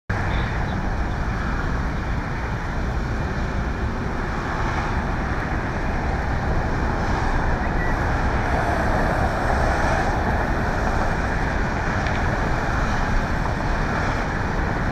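Steady engine and traffic noise, an even din with no distinct events.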